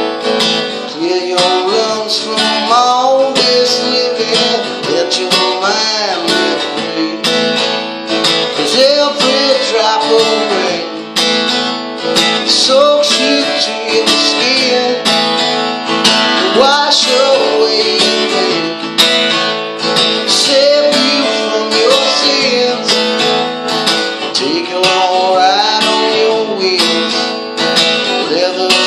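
Acoustic guitar strummed in a steady rhythm, with a man singing a song over it.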